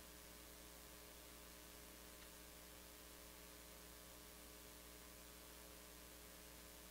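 Near silence: a faint, steady electrical mains hum over low hiss.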